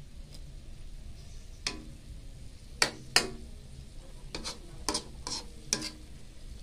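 Metal ladle stirring a mung bean sprout stir-fry in a metal wok, striking and scraping the wok with about eight sharp clanks from a couple of seconds in, over a low steady sizzle from the pan.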